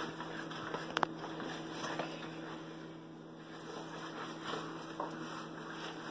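Steady low electrical hum, with faint rustles of a paper flour bag as flour is poured and a sharp light tap with a brief ring about a second in.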